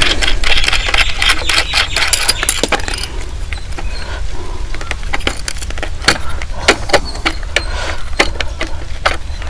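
Irregular metal clicks, taps and clinks as a plate and its fittings are worked loose and lifted off an electric water heater.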